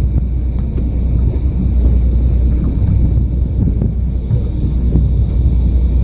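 Wind buffeting the microphone on an open boat at sea, gusting unevenly over a steady low rumble.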